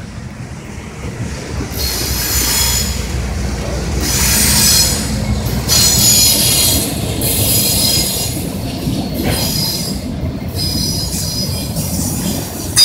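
CN train's wheels squealing as the train turns onto another line, in repeated high-pitched surges over a steady low rumble. The squeal starts about two seconds in and comes and goes several times.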